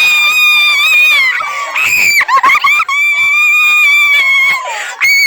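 Long, high-pitched screams of excitement, held and wavering, with a short choppy break about two seconds in.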